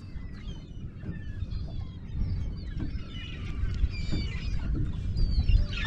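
Many seabirds calling in a flock over the water, short repeated cries that bend in pitch, under a steady low rumble.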